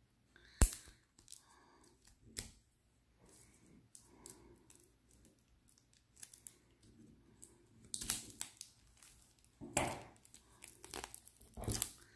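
Scissors snipping the plastic shrink-wrap on a tarot deck, with a sharp snip about half a second in and a smaller one a couple of seconds later. Near the end, the plastic wrap tears and crinkles as it is pulled off the cards.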